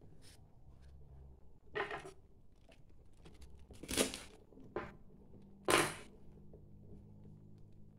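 Fresh banana leaf crinkling and rustling as it is handled and folded, in three short loud bursts about two seconds apart with a smaller rustle between them.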